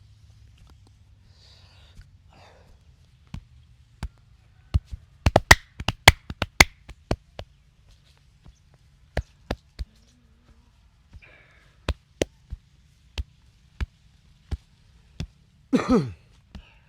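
Sharp slaps, taps and pops from a hands-on head and back massage. There is a fast flurry of loud strikes about five to seven seconds in, then single strikes every half second to a second. Near the end comes a short voice sound falling in pitch.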